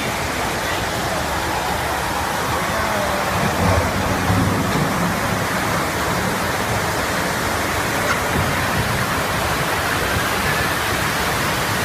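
Steady loud rushing of water around a ride boat in a flume channel, an even hiss with no break.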